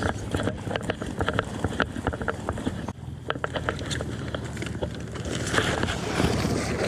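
A steady low motor hum with a clutter of sharp clicks and knocks over it.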